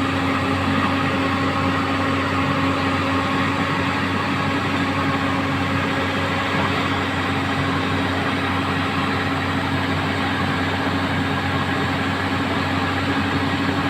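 Volvo backhoe loader's diesel engine running steadily at a constant pitch.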